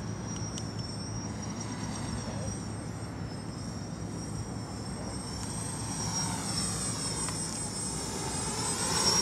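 DIY 'Baby Widow Maker' quadcopter flying overhead: the high whine of its brushless motors and propellers, with the pitch sweeping and the sound growing louder as it passes close near the end.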